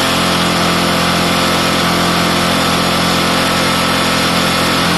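Bajaj Pulsar NS 200's single-cylinder, liquid-cooled engine idling steadily, run to circulate distilled flush water through the cooling system.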